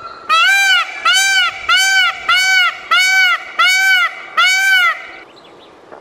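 Male Indian peafowl (peacock) calling: a run of short, loud, arching calls, about two a second, that stops about five seconds in.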